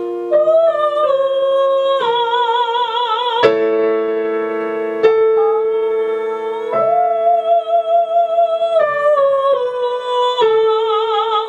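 A woman singing a vocal exercise on 'a' and 'u' vowels, held notes with vibrato stepping down in two descending phrases, over electric piano chords that change every couple of seconds. It is a chest-to-head voice mixing exercise.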